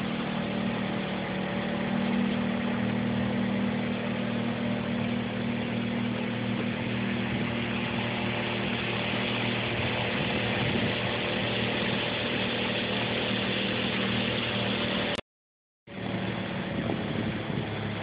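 Small motorboat's engine running steadily while under way, with wind and water rushing past the hull. The sound cuts out completely for under a second near the end.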